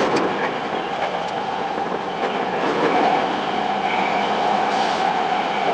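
Tokyo Metro 10000 series electric train running along the line: a steady rolling noise with a humming tone that holds near one pitch.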